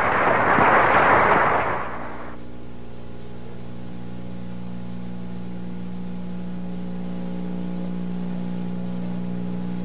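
Audience applause that cuts off abruptly about two seconds in, leaving a steady low electrical hum.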